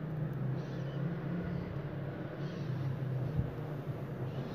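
A steady low background hum, with faint soft rustles over it.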